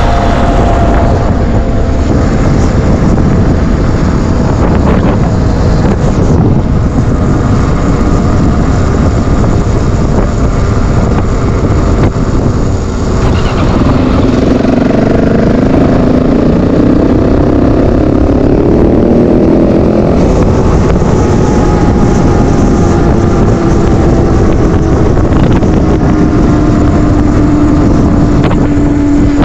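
Yamaha WR450F enduro motorcycle's single-cylinder four-stroke engine running while riding. Its note climbs and falls with the throttle partway through.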